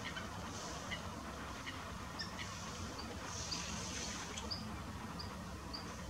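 Wildfowl on open water giving a series of short, high calls, roughly one every half second, over a steady low background rumble.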